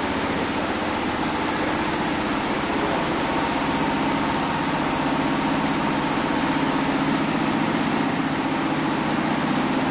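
A machine running steadily, a constant hum with a continuous noisy hiss that holds the same level throughout.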